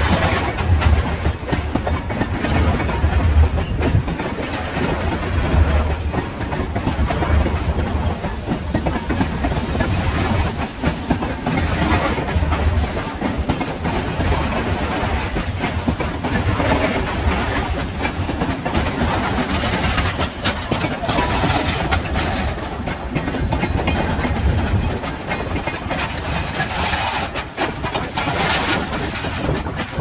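A freight train of loaded flat wagons rolling past close by: a steady rumble and rush of wheels on rail, with repeated clacks as the wheels cross the rail joints.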